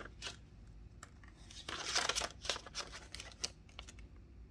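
Paper banknotes being handled and counted: crisp rustling and flicking of bills, in a run of short flicks that is thickest and loudest about two seconds in.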